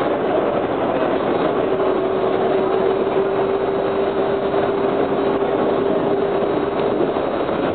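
Inside a Breda 4000-series Metrorail car running at steady speed: an even rolling noise of wheels on rail, with a steady whine from the Westinghouse DC traction motors and their gearing held through most of it.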